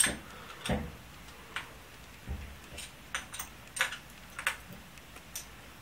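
About a dozen sharp, irregular metal clicks and ticks as a hex driver seats in and turns the cylinder-head screws of an O.S. 91HZ model glow engine, snugging them by hand.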